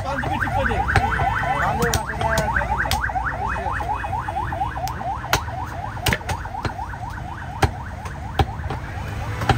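Butcher's cleaver chopping a goat leg on a wooden log block, a sharp chop about once a second. Through the first half a rapid warbling alarm tone repeats, about six rising sweeps a second, then fades.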